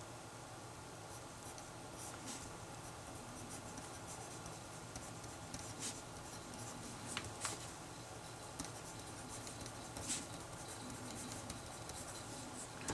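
Handwriting on paper: irregular short scratching strokes, a few sharper ones about six, seven and ten seconds in, over a faint steady background hum.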